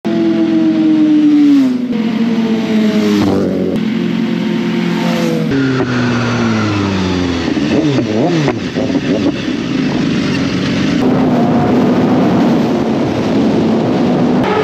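BMW S1000RR inline-four sport bike engine revving, its pitch falling off again and again as it shifts and slows. The sound changes abruptly several times, and after about eleven seconds it settles into a steadier, noisier rush of engine and road.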